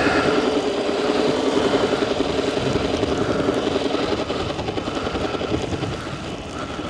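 Sur Ron electric dirt bike riding through snow: a steady whine from the electric motor and drivetrain over a fluttering rush of wind and tyre noise, easing off slightly near the end.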